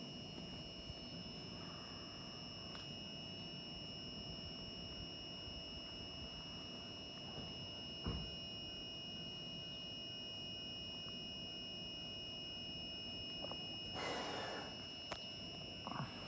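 Steady high-pitched electrical whine, several fixed tones at once, from two JR East EV-E301 'ACCUM' battery-electric trains standing at the platform with their equipment running. About fourteen seconds in there is a short hiss, with a few faint clicks around it.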